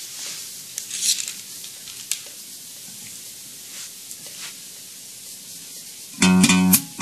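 A steady hiss with scattered crackles and clicks. About six seconds in, music starts with plucked guitar and bass guitar.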